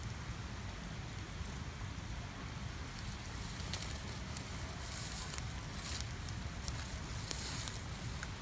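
Small fire of dry leaves and twigs crackling, with scattered sharp pops, more frequent in the second half, over a steady low rumble.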